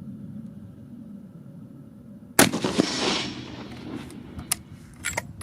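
A single shot from a Haenel RS9 bolt-action rifle in .338 Norma Magnum firing a 300-grain load, about two and a half seconds in. Its report echoes and dies away over about a second and a half, and a few short clicks follow.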